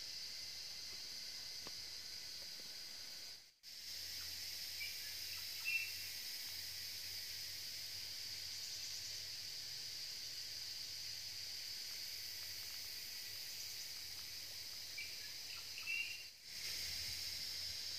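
Steady high-pitched insect chorus with a few faint chirps, cutting out briefly twice.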